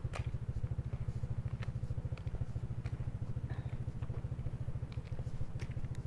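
An engine running steadily, a rapid, even low chugging with a few faint clicks over it.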